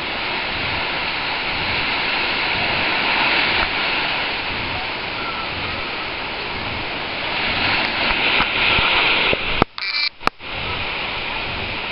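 Small waves breaking and washing up the shore, a steady rush of surf. About ten seconds in it cuts out briefly, with a click at each edge.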